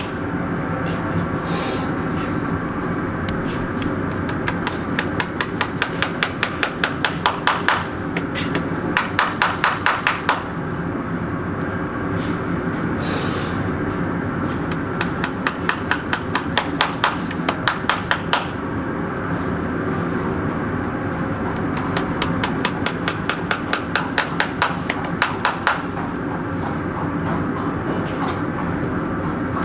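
Farrier's hammer striking metal in quick runs of light blows, about five a second, each run lasting a few seconds with short pauses between, typical of shoeing work on a horseshoe.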